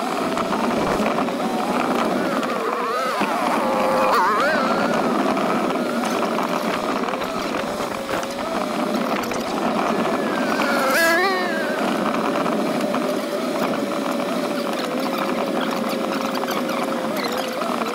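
Dirt bike engine running at a steady pitch, revving up and dropping back a few times, over a steady rushing noise.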